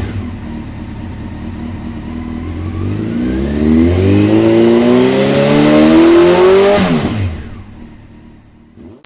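Car engine running steadily, then accelerating with its pitch rising, and passing by about seven seconds in with a sharp drop in pitch before fading away.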